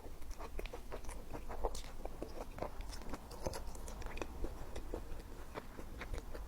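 Close-miked chewing and biting of food, a string of irregular small crunches and wet mouth clicks.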